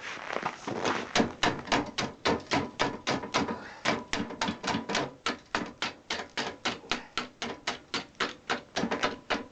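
Ratchet wrench clicking steadily, about four clicks a second, as a nut is tightened down.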